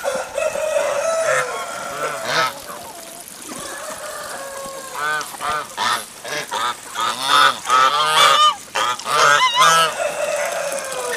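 A flock of domestic geese honking, with a run of rapid, repeated honks in the second half.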